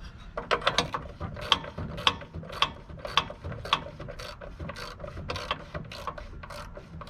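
Hand ratchet wrench being worked back and forth on a nut or bolt, a sharp burst of clicks on each stroke, about two strokes a second.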